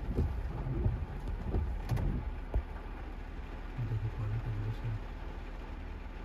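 Heavy rain falling on a car's windshield and body, heard from inside the cabin over the car's low rumble, with a few sharp knocks in the first seconds and a short pulsing hum about four seconds in.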